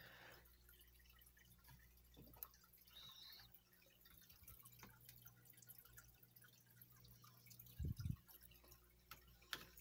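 Near silence: faint room tone with scattered small ticks, and a short, soft low double thump about eight seconds in.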